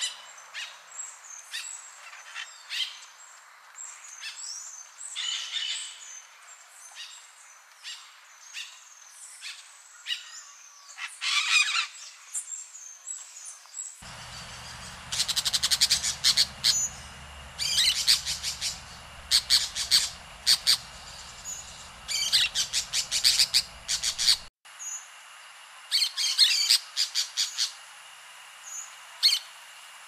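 Parakeets calling: repeated sharp, high chirps and squawks in quick clusters. From about halfway they are orange-chinned parakeets.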